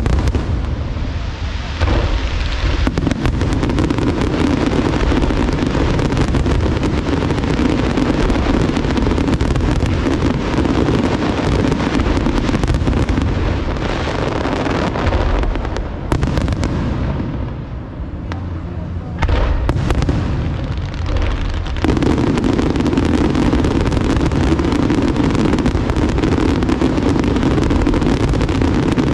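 Aerial fireworks in a dense, continuous barrage of bangs and crackling. It eases off for a few seconds about halfway through, then builds back to full density.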